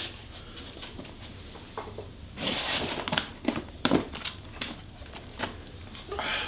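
Rustling and a few sharp knocks as a paperback book is picked up off a wooden floor, the loudest knock about four seconds in, with more rustling near the end.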